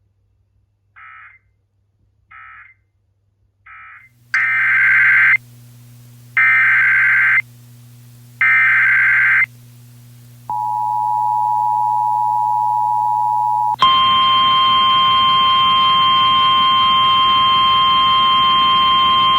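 Emergency Alert System tones: three faint short data bursts, then three loud, screeching SAME header data bursts about a second long and two seconds apart, then the steady two-note EAS attention signal for about three seconds. Near the end it switches abruptly to a harsher, buzzier steady tone with hiss, which carries on.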